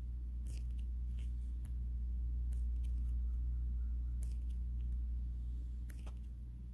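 A steady low hum with a few faint scattered clicks and rustles, like small handling noises.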